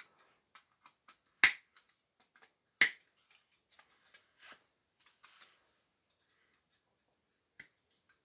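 Side cutters snipping a chunk out of a pager's circuit board: two sharp snaps about a second and a half apart, followed by lighter clicks of the cutters and handling and one last click near the end.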